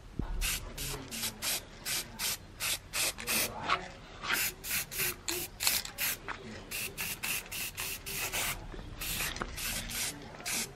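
Aerosol spray-paint can hissing in quick short bursts, about two or three a second, as paint is sprayed onto a metal ring.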